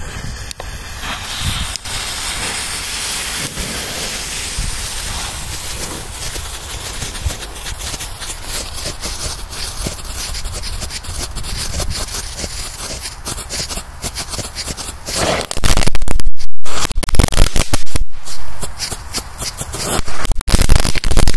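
Lit pyrotechnics hissing and crackling as they burn, steady for about fifteen seconds. Then a run of very loud bangs and bursts of burning pyrotechnics starts about fifteen seconds in, and comes back louder near the end.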